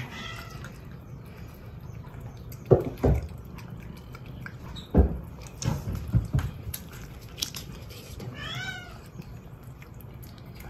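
Cats crowding a treat tube: one gives a short meow at the very start and another meows longer, its pitch wavering, about eight and a half seconds in. Several dull thumps come between about three and six and a half seconds in.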